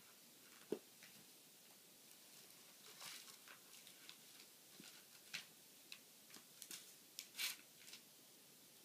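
Faint, scattered rustling and flicking of a small Bible's thin pages as a toddler turns them, with a short tap about a second in.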